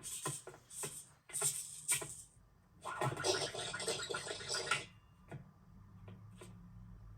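Film foley effects: a string of short clicks and knocks, then about two seconds of dense scratchy rattling, then a few faint ticks.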